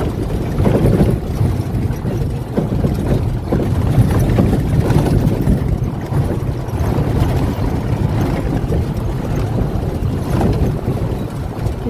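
Vehicle engine and road noise heard from inside the cabin: a steady low rumble.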